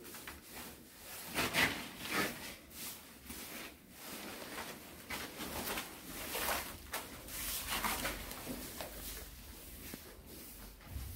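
Wet cement-based waterproofing slurry being worked across a bathroom floor, with irregular swishing and scraping strokes, several in quick succession. The hard, bare room makes it sound close and slightly echoing.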